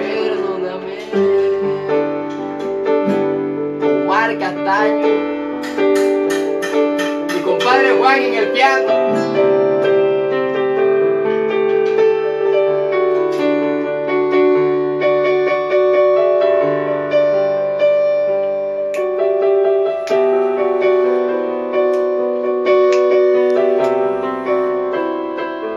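Electronic keyboard playing piano-sound chords and a slow melody. A man's voice sings a few wavering wordless notes about four to nine seconds in.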